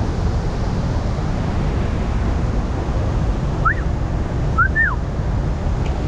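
Steady outdoor rushing noise, heaviest in the low end, with two short chirps that rise and fall in pitch, about four and five seconds in.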